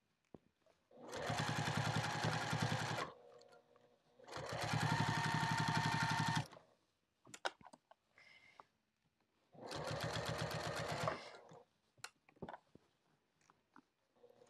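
Sewing machine stitching binding around the edge of a fabric bag in three runs of about two seconds each, each with a fast, even stitch rhythm. A few small clicks come in the pauses between runs.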